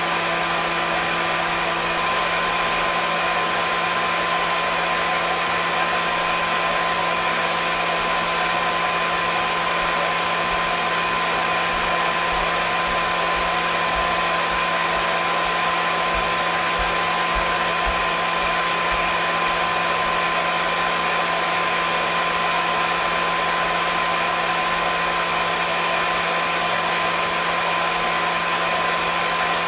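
Hair dryer running steadily: an even rushing of air with a constant motor hum and whine underneath.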